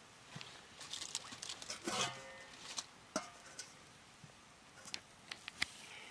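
Metal cookware clattering: a steel lid and ladle knocked against a wok on a wood fire, with a ringing clang about two seconds in and a shorter ring a second later. A few sharp clicks follow near the end.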